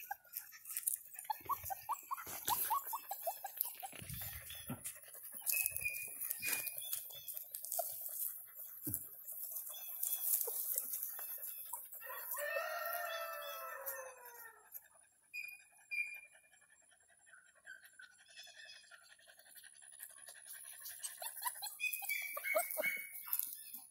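A rooster crows once about halfway through, a long call that falls in pitch at its end. Around it come rustling and knocks from puppies being handled in the grass, and a few short high chirps.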